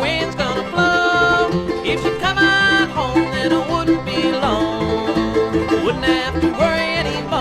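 Bluegrass band playing an instrumental passage: banjo, guitar and bass keep a steady plucked pulse under a lead line that slides between notes.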